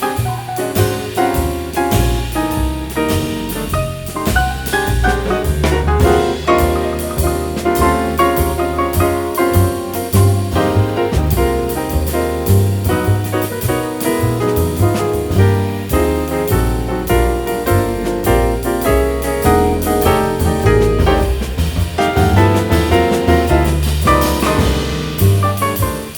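Background jazz music with walking bass, drum kit and piano.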